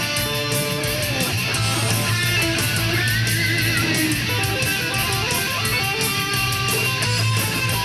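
Electric guitar through a DiMarzio DP100 Super Distortion humbucker, played with heavy distortion: metal lead lines with wide vibrato on held notes, over a band backing with a steady cymbal beat.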